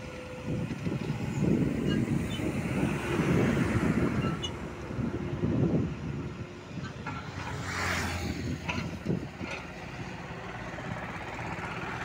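Tata Hitachi crawler excavator's diesel engine running as it digs soil with its bucket, the low rumble uneven in the first half and steadier later. A short hiss about eight seconds in.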